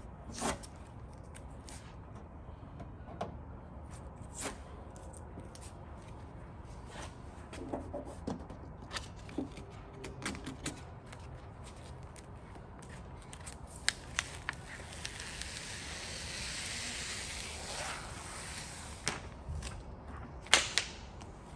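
Hands and a felt-edged squeegee working a vinyl decal on a truck's bed side: scattered light taps and rubs, then a steady peeling hiss for about three seconds as the transfer tape is pulled off the applied decal, and a sharp snap of the film near the end.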